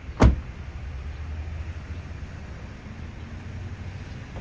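A 2021 Porsche Macan's door shut once with a single sharp thump just after the start, followed by a steady low rumble of outdoor background noise.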